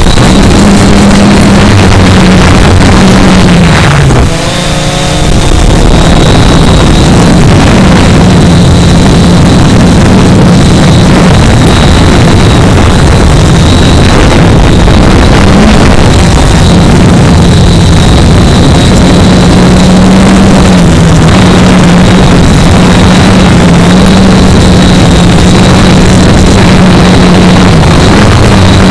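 Quadcopter motors and propellers (Quanum Nova Pro / Cheerson CX-20) heard from the camera on board the drone: a loud, steady buzz with a thin high whine, its pitch wavering as the throttle changes, mixed with wind rush. It drops away and changes briefly about four seconds in.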